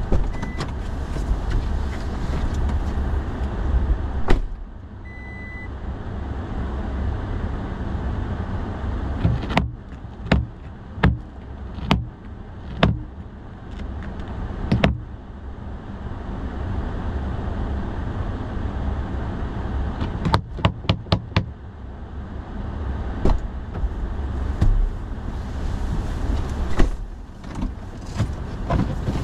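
Pickup truck idling while its door shuts about four seconds in. Then come a series of sharp knocks and taps as ice is knocked off the windshield wipers, with a quick cluster of knocks about twenty seconds in.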